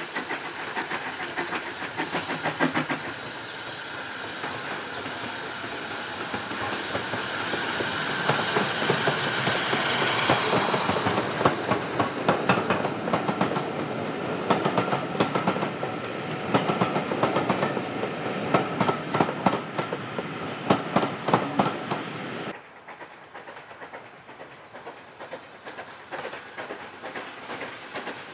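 Double-headed steam train, led by SE&CR H class 0-4-4T No. 263, running past: the locomotives go by, then the coach wheels click over the rail joints in quick rhythmic groups as the carriages pass. About three-quarters of the way through the sound drops to a quieter, more distant train running, with fainter wheel clicks.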